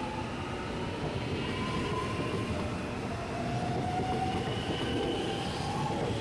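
Six-car second-generation Alstom X'trapolis electric train moving off along the platform, its traction motors whining in rising sweeps that climb, drop back about halfway through and climb again, over steady wheel and rail rumble.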